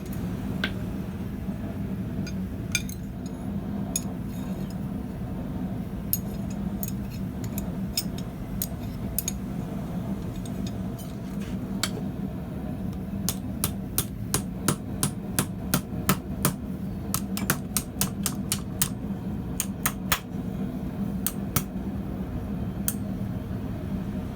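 Blacksmith's hammer striking steel on an anvil: scattered single blows at first, then a quick run of strikes, about two or three a second, past the middle, over a steady low hum.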